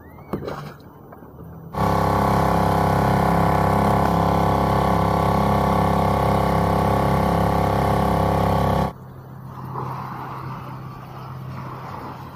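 Small outboard motor on an inflatable dinghy running at a steady speed for about seven seconds, starting and stopping abruptly.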